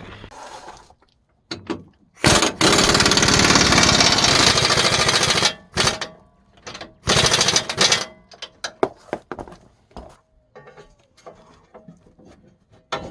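Impact wrench running in two runs, one of about three seconds and one of about a second, undoing the bolts of the truck's underbody dust covers. Scattered clicks and knocks follow.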